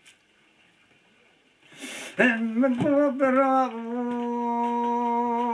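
Unaccompanied male voice singing a Kurdish uzun hava. After a silent pause and an audible breath, he comes in about two seconds in with a wavering, ornamented phrase. He then holds one long, steady note.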